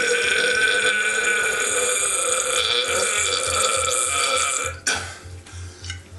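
A long, loud belch, held for nearly five seconds and cut off suddenly.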